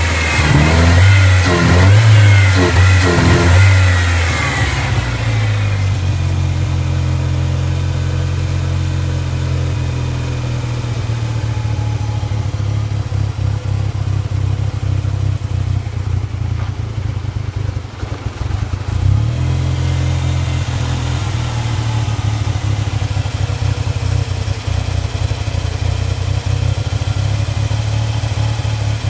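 Ford Ranger's 2.3-litre four-cylinder engine is revved for the first few seconds, then drops to a rough, sputtering idle that sags once about 18 seconds in. The roughness persists despite new plugs, wires, coil pack, PCV valve and throttle position sensor and a cleaned MAF sensor; the owner has found a vacuum line he cannot place.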